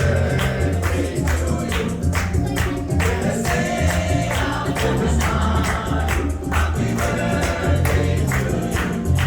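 Background music with singing and a steady beat, with tambourine-like percussion.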